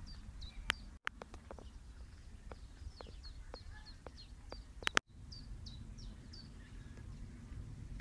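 A small songbird calling from the scrub in quick, short chirps that dip slightly in pitch, several a second, over a low outdoor rumble. Two sharp clicks are heard, and the sound cuts out briefly about a second in and again about five seconds in.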